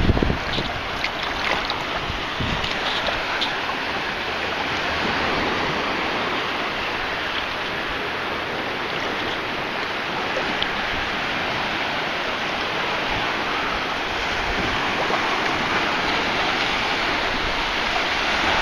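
Steady wash of shallow surf and sloshing sea water around a wader.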